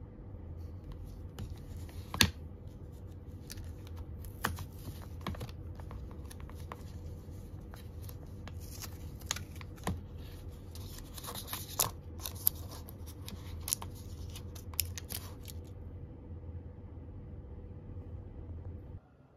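A stick pack of Hi-Chew candy being torn open and a piece unwrapped from its paper wrapper: a run of crinkles, rips and sharp clicks, the loudest about two seconds in, dying out a few seconds before the end. A steady low hum runs underneath.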